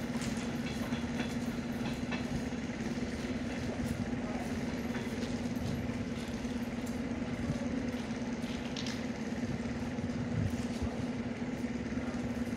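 ER9M electric multiple unit pulling away from the platform and receding, with a steady hum throughout and a few faint clicks.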